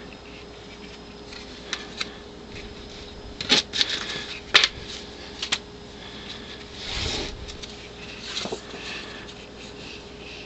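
Paper postcards being handled: a few sharp paper clicks and taps, then a longer rustle about seven seconds in.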